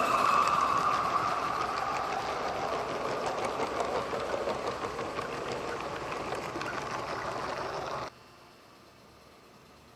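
A model garden-railway train running past close by, its coach wheels clattering over the track in a rapid stream of small clicks that slowly fades, then cuts off abruptly about eight seconds in to faint background hiss.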